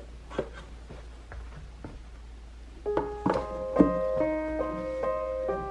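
A few faint taps and knocks, then piano music starts about three seconds in: single notes over held chords.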